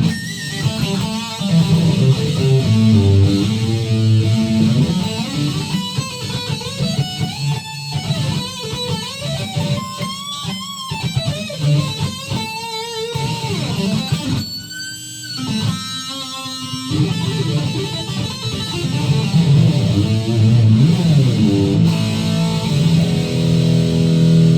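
Fender Telecaster electric guitar on its bridge (back) pickup, played through overdrive: a run of single-note licks with string bends and vibrato, settling into held chords near the end.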